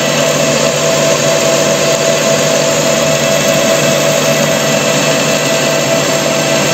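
Metal lathe running under power, turning a steel shaft with a carbide-insert tool: a steady higher whine over a lower hum.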